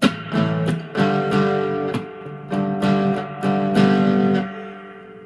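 Rickenbacker 360 electric guitar with flatwound strings, selector in the middle position so both pickups sound, played through two amps at once: a run of strummed chords, the last one left to ring and slowly fade.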